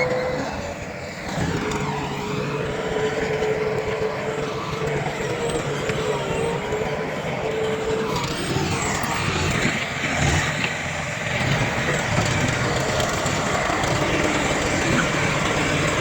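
Heavy diesel earthmoving machinery (bulldozer and dump trucks) running steadily at work, with a steady high whine that wavers slightly in pitch over the engine noise.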